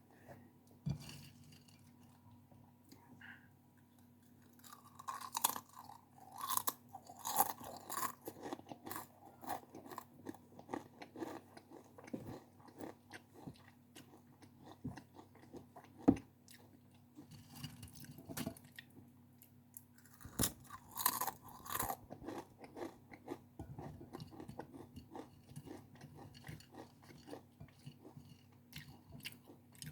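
Close-miked crunchy chewing of a crisp snack. Bursts of loud crunching come about 5 to 9 seconds in and again around 20 seconds in, with a sharp crack near the middle and softer chewing between.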